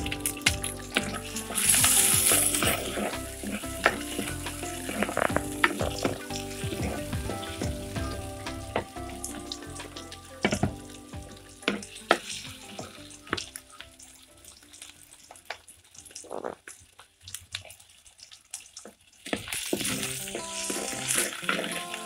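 Sliced onion, green chilli and garlic sizzling in hot oil in a clay pot, stirred with a wooden spoon that scrapes and knocks against the pot. The sizzle is loud near the start, dies down in the middle and flares up again near the end. Quiet background music plays under it.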